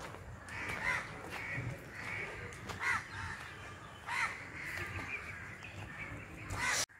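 Crows cawing repeatedly, a call roughly every second, over faint outdoor background; the sound cuts off suddenly near the end.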